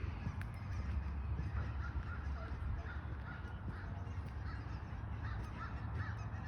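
A large flock of birds calling, many short overlapping calls throughout, over a low steady rumble.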